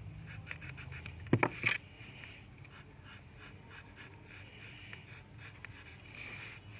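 Scratchy drawing strokes and light ticks of a drawing tool on a surface, with two louder clicks about a second and a half in.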